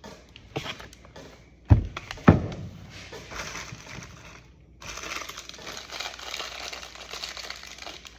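Hand work on parts and tools: two sharp knocks about half a second apart a little under two seconds in, then a few seconds of rustling, crinkling clatter.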